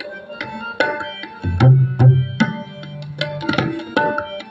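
Tabla playing a rhythmic pattern of sharp strokes, with deep bass-drum booms around two seconds in and again later, over steady held harmonium tones in an instrumental passage of shabad kirtan.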